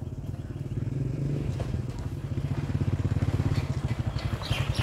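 An engine running with a fast, even putter, like a motorcycle, growing louder toward the end.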